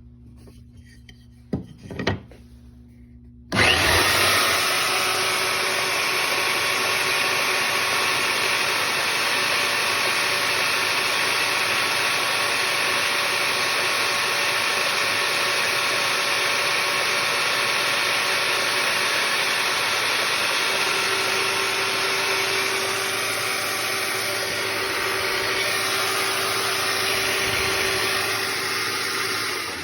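A couple of short knocks, then a Bauer portable band saw switches on about three and a half seconds in and runs steadily at full speed, with a slight change in tone in the last third.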